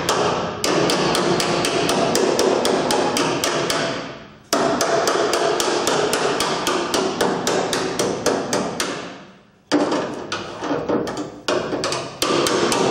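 Two hammers beating the sheet-steel front inner wing of a VAZ 2110, one striking and one held behind the panel as a dolly, to flatten stretched metal. Quick sharp blows, about five or six a second, with the steel ringing between them, in four runs broken by short pauses.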